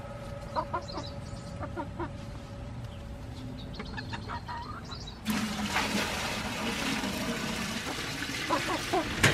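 Hens clucking, then about five seconds in a steady rush of water poured from a bucket starts suddenly and becomes the loudest sound.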